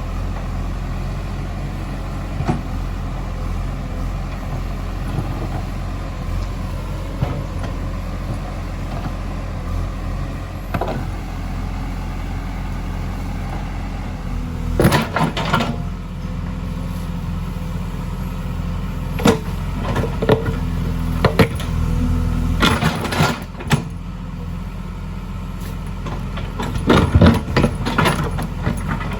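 JCB 3DX backhoe loader's diesel engine running steadily, with sharp clanks and knocks now and then, loudest about halfway through and near the end.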